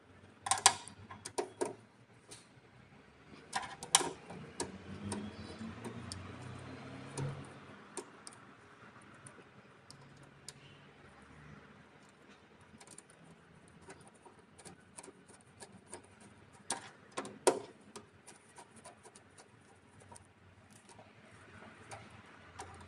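Scattered small clicks and taps as wire ends are pushed into a hybrid solar inverter's AC output screw terminals and tightened with a screwdriver. There are a few louder clicks near the start and two sharp ones past the middle.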